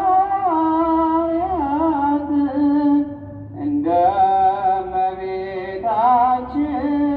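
Ethiopian Orthodox hymn (mezmur) sung by a choir. The singing moves in long held notes with wavering ornaments. One phrase ends about three seconds in, and after a short breath the next phrase begins.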